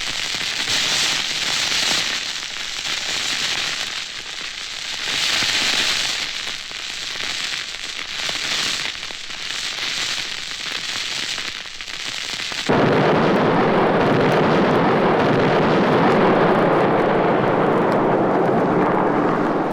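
Sound-effects record: dense crackling and popping that swells and fades. About 13 seconds in it cuts abruptly to a louder, steady rushing roar.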